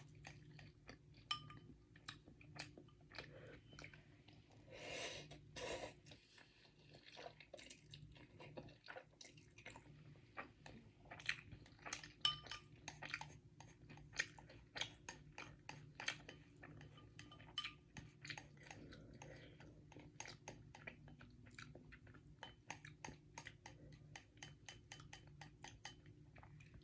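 Close-miked chewing of Samyang carbonara instant noodles, with many short wet mouth clicks and an occasional clink of cutlery against the dish.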